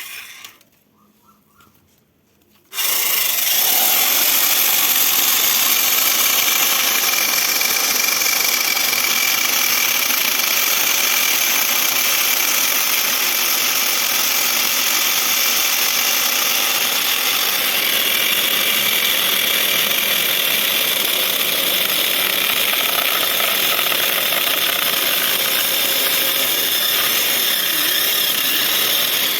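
Electric chainsaw with a 405 mm bar switched on about three seconds in. It runs steadily and loud, then cuts off suddenly at the end.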